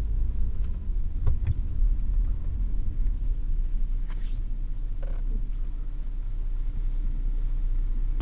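Steady low rumble of a car's engine and road noise heard from inside the cabin while driving, with a few faint clicks and a soft rustle.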